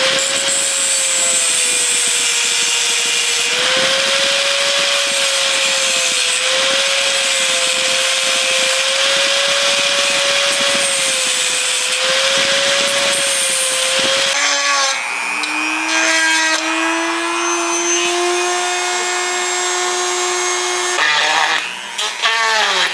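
Small high-speed power tool, a rotary tool or drill, running against a surface with a steady high motor whine and a rasping hiss. About two thirds of the way in the pitch drops and steadies, and near the end the motor winds down with a falling pitch.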